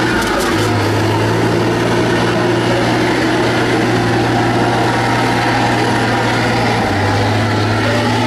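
Heavy competition truck's diesel engine running at fairly steady revs, its note shifting slightly in pitch about half a second in and again near the end.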